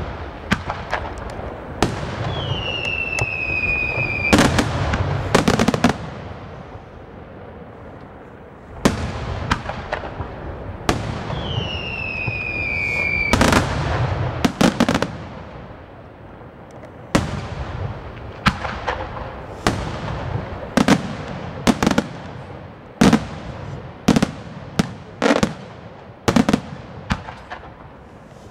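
Aerial fireworks shells bursting with sharp bangs one after another, with a steady hiss between them. Twice a falling whistle sounds for about two seconds and ends in a loud bang; in the second half the bangs come faster, about one a second.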